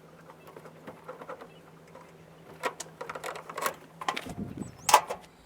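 A series of light clicks and knocks, growing louder and closer together in the second half, over a faint steady hum that stops about four seconds in.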